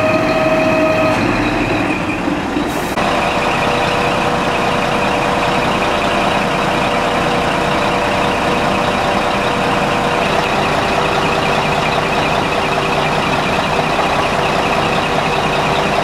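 Scania P340 fire truck's diesel engine idling steadily, close by, with a sharp edit change about three seconds in.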